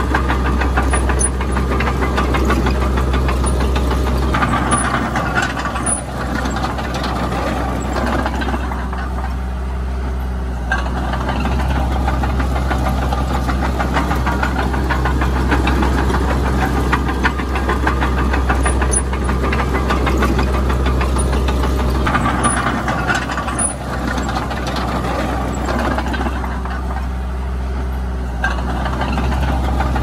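Diesel engine of a Komatsu D20P crawler bulldozer running steadily, its sound changing twice for a few seconds, about four seconds in and again after about twenty-two seconds.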